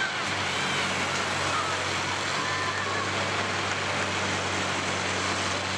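Combine harvester engines running at a steady, even drone with a broad rumble, as a combine drives across the derby arena.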